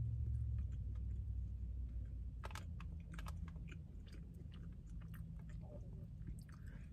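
A person chewing a bite of glazed donut close to the microphone, with soft scattered mouth clicks and smacks, over a low steady hum in a car's cabin.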